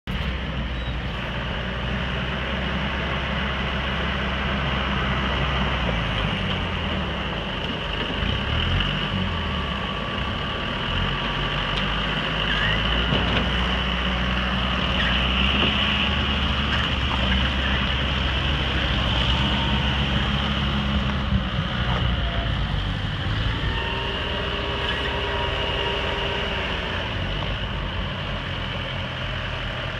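Diesel tractor engines running as the tractors drive about, the engine note rising and falling several times as they speed up and slow down.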